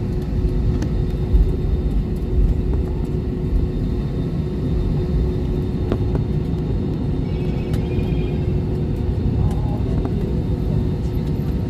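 Steady low rumble of an airliner's cabin noise after landing, from engines and air systems, with a constant hum tone running through it.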